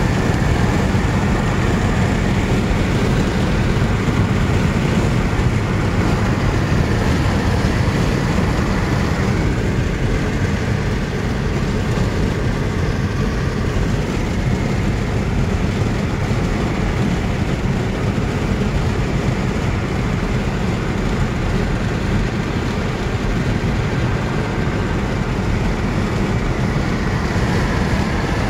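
Steady road and wind noise of a car driving at highway speed, heard from inside the car, heavy and rumbling low down; it eases slightly midway and builds again near the end.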